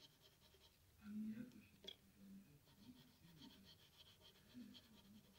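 Faint graphite pencil scratching on paper in quick, even strokes, about seven a second, as in shading. The strokes stop briefly after the first half second and start again near the middle. In the gap come a louder low murmur and a single sharp tick.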